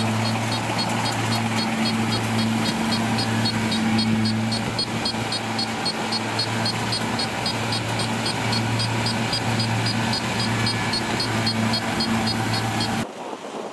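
Kubota combine harvester's diesel engine running steadily under load while cutting rice, with a fast, even ticking from the working machinery. The sound cuts off suddenly near the end.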